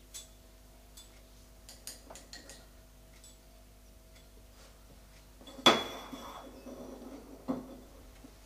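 Ceramic clinks of glaze pots and brushes handled on the workbench: a few light taps in the first few seconds, a sharp clink with a short rattle about two-thirds of the way through, and one more knock near the end.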